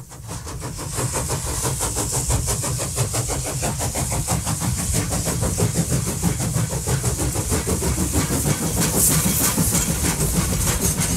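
Train carriage running: a steady low rumble with rapid, regular clicking of wheels over the rails, fading in over the first second.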